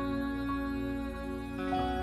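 Gentle background music: long held notes, moving to a new chord near the end.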